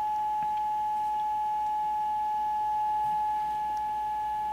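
Yaesu FT-891 transceiver's CW sidetone: one steady beep held while the transmitter is keyed down, sending a continuous carrier at 100 watts into a dummy load.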